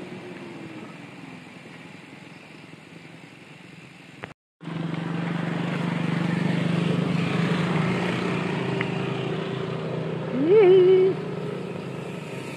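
Steady drone of a motor vehicle's engine over wind and road noise; the sound drops out for a moment about four seconds in and comes back louder. Near the end a short rising, wavering tone sounds once.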